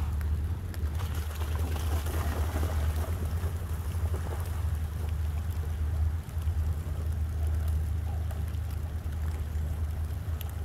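Wind buffeting the phone's microphone as a low, steady rumble, over a faint wash of rain and running creek water.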